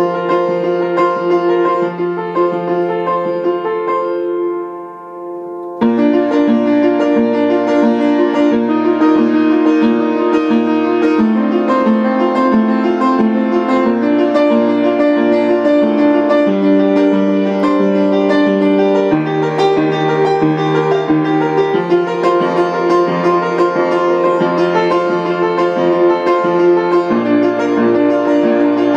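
Piano playing: a held chord softens and fades for a moment, then about six seconds in a fuller passage of steadily repeated chords over a moving bass line comes in and carries on.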